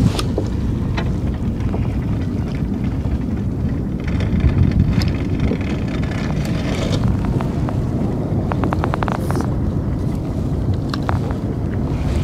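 Steady low wind rumble on the microphone, with scattered small clicks and a short run of rapid ticks about eight and a half seconds in.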